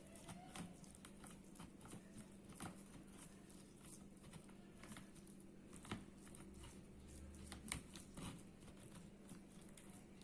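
Near silence: faint scattered clicks and taps of kitchen things being handled, over a low steady hum.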